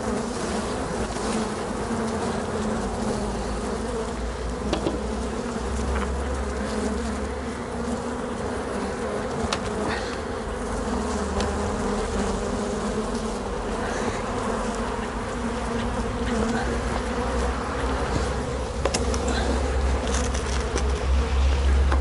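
A mass of honeybees from an opened, highly defensive ('hot') hive buzzing in a steady hum, the sound of agitated bees in the air around the hive.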